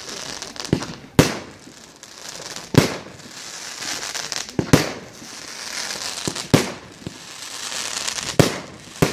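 Aerial fireworks going off: a string of six sharp bangs, roughly two seconds apart with the last two close together, with crackling and hiss from the bursting stars between them.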